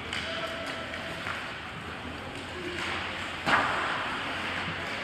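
Arena sound of a youth ice hockey game in play: a steady wash of skating and rink noise, with one sharp crack about three and a half seconds in.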